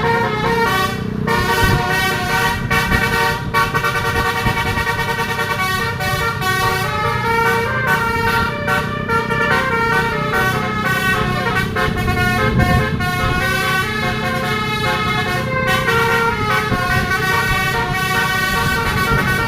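Indonesian telolet multi-tone bus horn playing a fast, continuous melody of rapidly changing notes, with a steady low rumble underneath.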